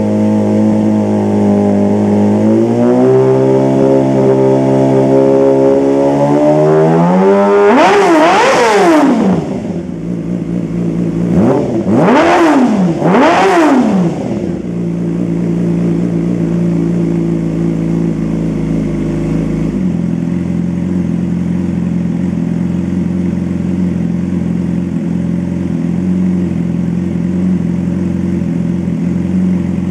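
2006 Yamaha R6 inline-four sport-bike engine idling through an aftermarket side-mounted muffler and revved in place: it climbs slowly to one long rev that falls back, then two quick throttle blips about a second and a half apart, before returning to a steady idle.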